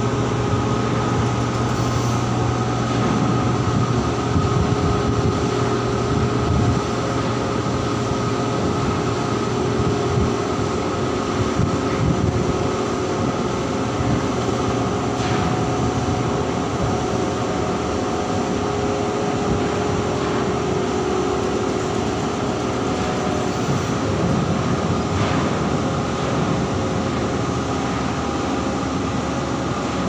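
Ship's machinery running, a steady loud drone with several constant hums layered over it. The lowest hum is strongest in the first third and then eases.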